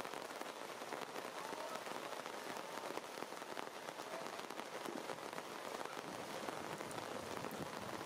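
Steady rain falling through tree foliage: an even hiss of many small drop hits.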